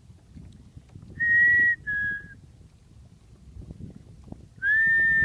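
Two-note whistle, a steady higher note followed by a slightly lower one, heard twice: about a second in and again near the end.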